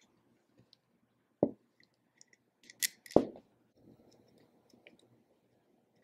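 Handling of an airsoft gearbox and its wire harness on a wooden bench: two solid knocks, one about a second and a half in and another just after three seconds preceded by a sharp click, with a few faint ticks between.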